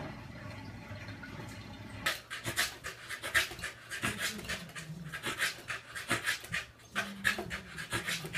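A corgi panting hard with its tongue out, quick breaths several a second, starting about two seconds in after a low steady hum.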